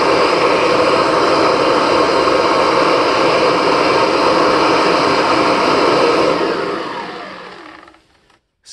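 Kirby Diamond Edition upright vacuum running at full power, its motor blowing a strong stream of air out of the filltube exhaust. About six seconds in it shuts off, and the motor spins down with a steadily falling whine until it stops about two seconds later.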